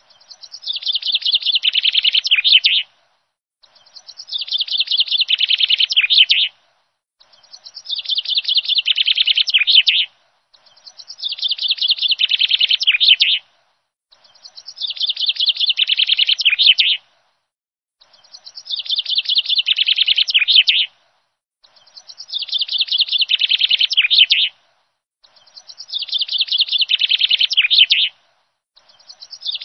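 A rapid, clicking animal chatter, like a chattering call, played as a loop. Each run lasts about three seconds, grows louder and then cuts off abruptly, and after a short silence the same run starts again, about every three and a half seconds.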